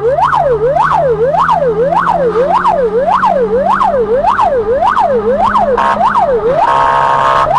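Emergency vehicle siren on a fast yelp, its pitch sweeping up and down a little under twice a second. Near the end it breaks into two steady horn-like blasts, a short one and then one of about a second, before the yelp starts again.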